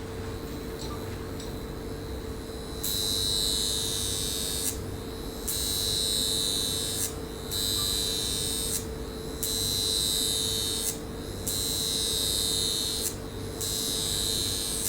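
A high-frequency facial electrode handle buzzing in repeated bursts from about three seconds in, each lasting about a second and a half with short gaps between. It is a hissing buzz with a high whine, over the machine's steady hum.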